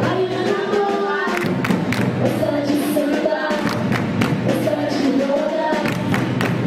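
Live samba de roda: voices singing a melody over drums and hand percussion, with frequent sharp percussive strokes in a steady rhythm.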